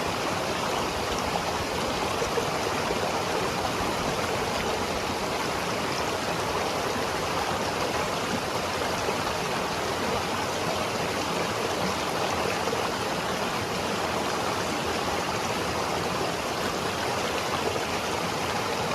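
Mountain river water rushing steadily, a continuous even hiss of flowing water.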